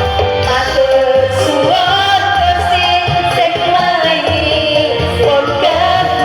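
Music with a singing voice carrying the melody over an instrumental backing with a steady low beat.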